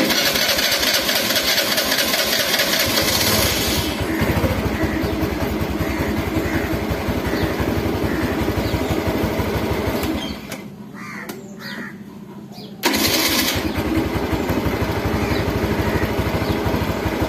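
TVS Zest 110 scooter's single-cylinder engine being started on its electric starter motor, freshly fitted with a new starter relay: the starter cranks, the engine catches and runs steadily. About ten seconds in the engine goes quiet, and it is started again a little later with a shorter burst of cranking and runs on. The starter stops as soon as the button is released, showing the new relay is working.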